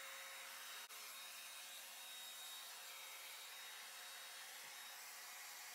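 Faint, steady whooshing hiss of a Vidal Sassoon hand-held hair dryer with a diffuser attachment, running.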